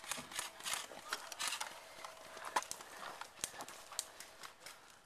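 Footsteps moving quickly through dry leaf litter and brush, an uneven run of crunching steps, with a few sharp cracks among them.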